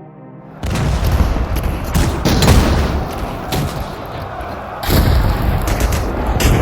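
World War One battlefield sound-effect ambience: dense gunfire and artillery booms over a low rumble, cutting in abruptly just under a second in after a quiet passage with a soft tone and drips. A fresh surge of shots and booms comes about five seconds in.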